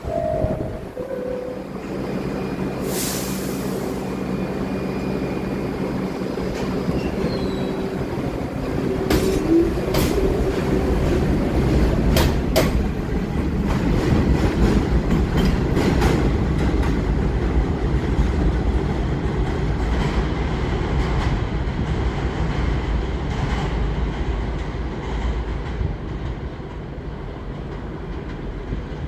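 R62 subway train departing a station: a falling two-note door chime, a short hiss of air, then the train pulls out. The rumble builds, with wheels clicking over rail joints and some wheel squeal, and fades as the train draws away.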